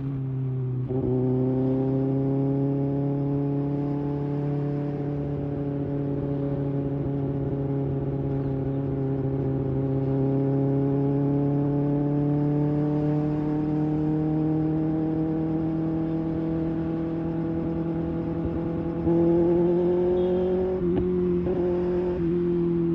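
Kawasaki Ninja ZX-6R inline-four engine running through an IXIL slip-on exhaust, held at steady revs that slowly climb. The revs step up about a second in, step up again near the end, and dip briefly just after.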